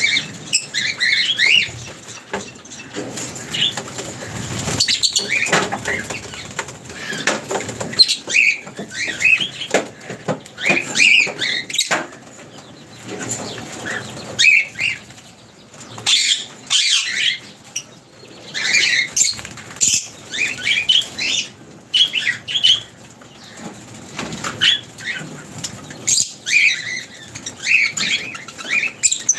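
A flock of birds at a feeding spot: repeated flurries of wing flapping mixed with many short, overlapping chirps.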